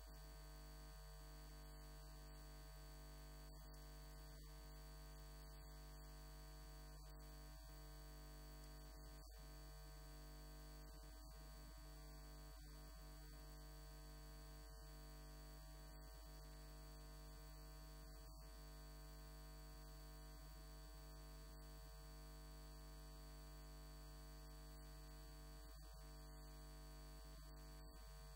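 Near silence: a steady, unchanging electrical hum and buzz with no speech.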